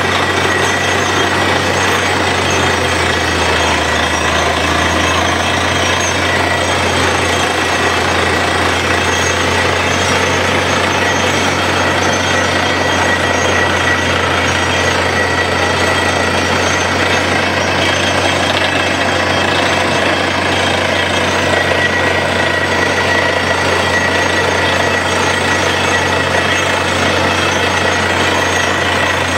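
Truck-mounted borewell drilling rig running hard while drilling with compressed air: a steady, loud din of its engine, air compressor and down-the-hole hammer, with air blasting rock dust up out of the borehole and a steady high whine throughout.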